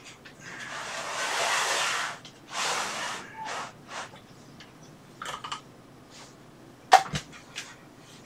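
Heavy breaths out close to the microphone, a long one followed by two shorter ones, then small clicks and rattles of handling cables and parts inside a desktop PC case, with one sharp click about seven seconds in.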